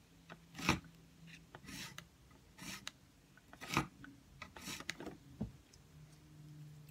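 A thin tool scraped in short strokes along the edge of a metal ruler across a textured, painted surface: five scratchy strokes about a second apart. A faint steady hum comes in near the end.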